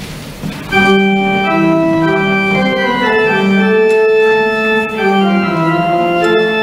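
Organ beginning a postlude about a second in, held chords whose notes change every second or so, right after the closing benediction.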